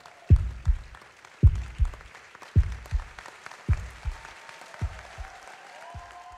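Audience applause over music with a slow, heavy bass beat, about one beat a second, and a few held tones above it.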